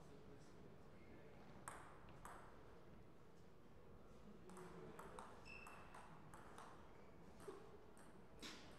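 Table tennis ball clicking off the rackets and the table during a rally: two light clicks about two seconds in, then a quicker run of clicks from about halfway, and one louder knock near the end.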